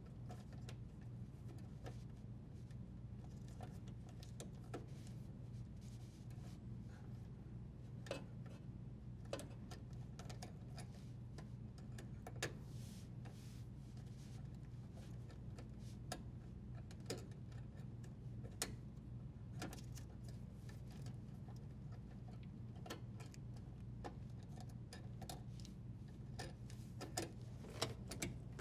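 Faint, scattered small clicks and rustles of plastic wire nuts being untwisted and electrical wires being handled, over a steady low hum.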